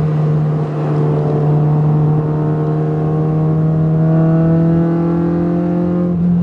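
2008 Honda Civic Si's 2.0-litre four-cylinder with a catless header and aftermarket cat-back exhaust, pulling under load, its note climbing slowly for several seconds, then dropping sharply near the end.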